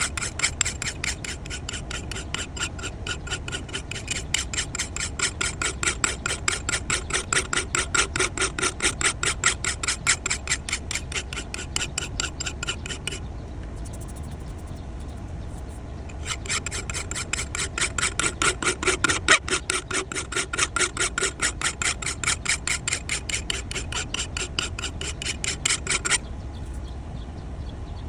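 Hand file rasping back and forth in rapid, even strokes along the steel edge of an old Japanese masakari timber axe, cleaning up the edge and bevel. The strokes pause for about three seconds midway and stop shortly before the end.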